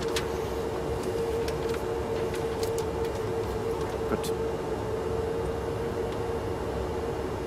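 Airliner cockpit noise while taxiing: the steady drone of the Airbus A330's idling Rolls-Royce engines and air conditioning, with a constant mid-pitched whine and a few faint clicks.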